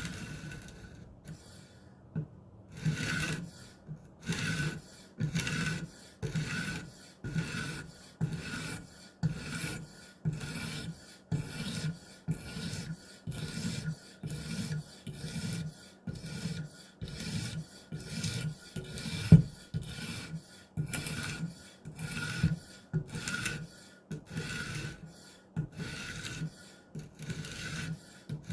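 Diamond sharpening stone on an Edge Pro guided sharpener rasping back and forth along the edge of a Maxamet steel knife. After a short pause the strokes start about three seconds in and go on in a steady rhythm, a little more than one stroke a second.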